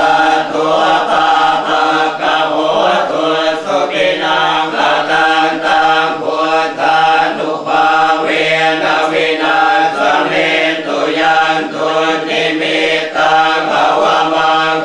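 A group of Buddhist monks chanting Pali in unison, a steady rhythmic recitation held on a nearly unchanging low pitch. It is the consecration chant for a batch of amulets.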